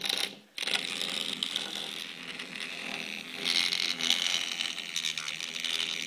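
Small electric motor running with a steady buzzing, rattling mechanical whir; it drops out for a moment just after the start, then runs on.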